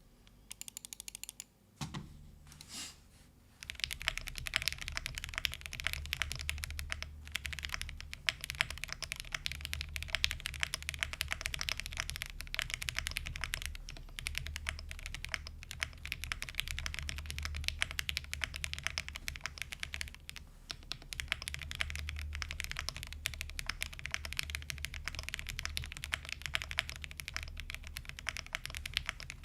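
Custom GrayStudio Space80 Apollo mechanical keyboard with an FR4 plate and lubed Gateron Oil King linear switches being typed on: a few separate keystrokes at first, then from about three and a half seconds in a fast continuous stream of keystrokes with a few brief pauses.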